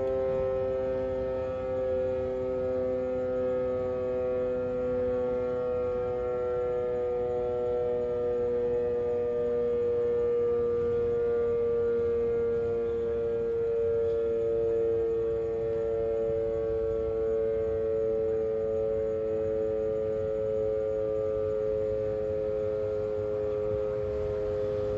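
Motor-driven mechanical siren of a municipal disaster-warning system sounding its daily time signal. It is slowly winding down as a steady, loud wail whose pitch sinks gradually.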